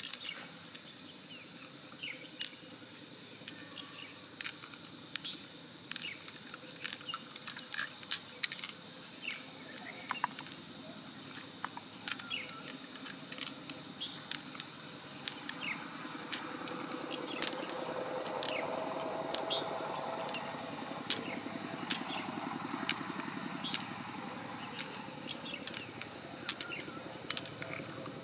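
Pearls clicking against each other and the mussel shell in irregular sharp ticks as fingers pick them out, over a steady high drone of insects.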